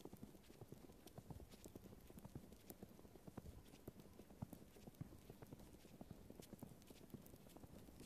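Faint footsteps crunching through fresh snow, a string of small irregular crunches.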